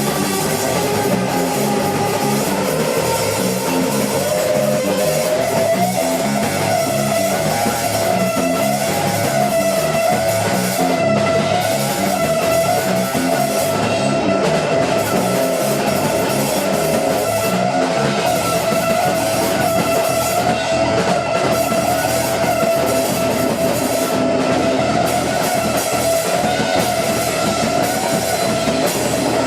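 Post-hardcore/math rock band playing live and loud: electric guitars over a drum kit. From about six seconds in, a held, slightly wavering note runs over the playing.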